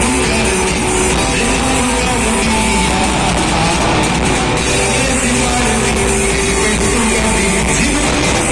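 Live rock band playing loudly through a PA, with electric guitar, bass and drums, and a little singing.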